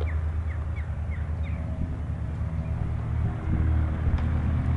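Boeing Stearman biplane's radial engine running at takeoff power during the takeoff roll, a steady low drone.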